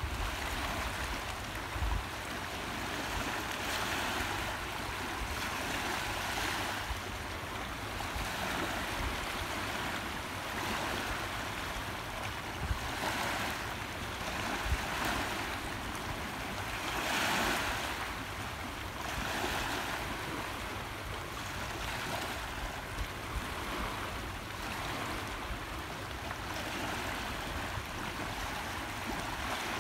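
Small waves lapping and washing over a rocky, sandy shoreline, swelling and falling back every couple of seconds, with one fuller wash about two-thirds of the way through.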